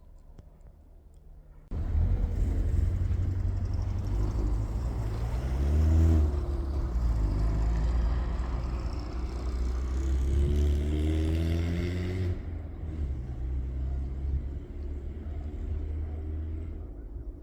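A motor vehicle engine, heard with a heavy low rumble, starting abruptly about two seconds in and rising in pitch twice as it revs, then easing off and fading near the end.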